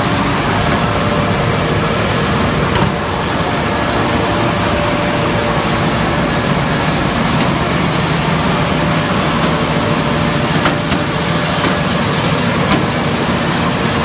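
LDPE plastic film washing line running: electric motors and washing machinery give a loud, steady din, with water churning in the washer.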